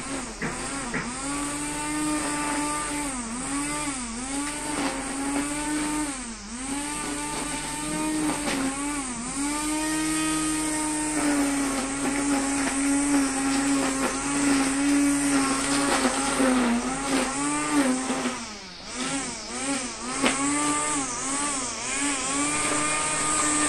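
Electric string trimmer running, its motor whine dipping in pitch again and again as the nylon line bites into weeds and grass, then picking back up.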